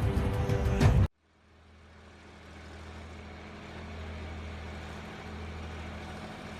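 Loud background music cuts off suddenly about a second in. A Ural truck's engine then fades in, running steadily with a low hum.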